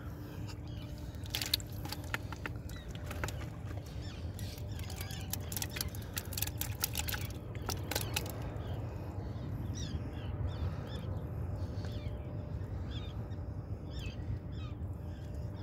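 Shoreline ambience: a steady low rumble, with a flurry of sharp clicks and ticks in the first half and faint high chirps in the second half.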